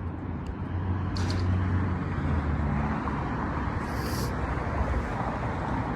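Road traffic: a vehicle engine running close by over steady road noise, with a short high hiss about four seconds in.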